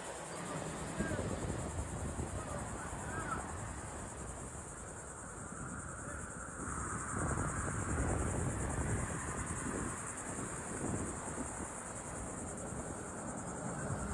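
Outdoor ambience: a steady high-pitched insect drone over a low rumbling background noise.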